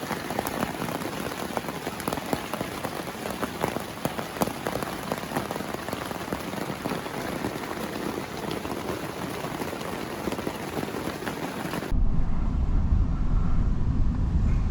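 Heavy rain, a dense hiss with many individual drops ticking. It cuts off abruptly about twelve seconds in, replaced by a louder low rumble.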